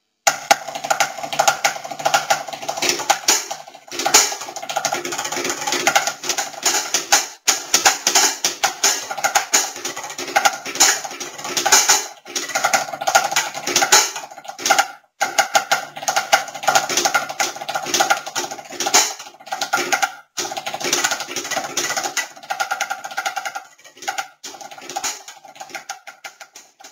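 A drum kit played in a steady groove over pitched music, loud and dense. The sound cuts out completely for a moment about six times and ends just before the close.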